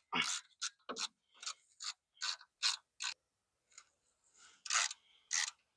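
Ratchet wrench with a 3/8-inch hex bit socket clicking in short strokes, about eight in a row at roughly two and a half a second, backing out a brake caliper mounting bolt. The clicking pauses briefly with a faint rubbing sound, and two more short strokes follow near the end.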